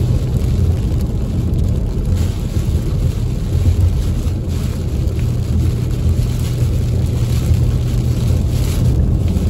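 Steady low rumble of a car driving on a wet road, heard from inside the cabin: engine and tyre noise on the wet pavement, with rain hitting the windshield.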